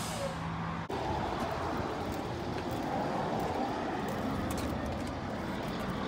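Steady road traffic noise: a constant wash of passing cars.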